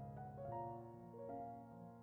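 Soft background piano music, notes struck one after another and left to ring.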